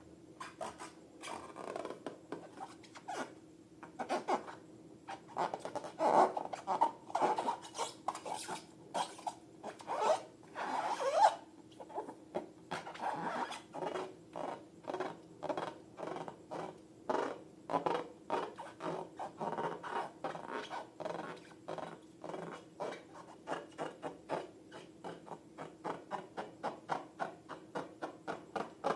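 Slime being worked by hand: a long run of short, sticky squelching and crackling strokes, a few a second, coming quicker and more evenly near the end.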